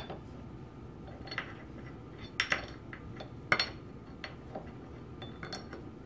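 Steel parts of a Linotype knife block clinking and clicking as its cam is fitted and worked by hand: a handful of sharp metal clicks spread over a few seconds, the loudest two about a second apart near the middle.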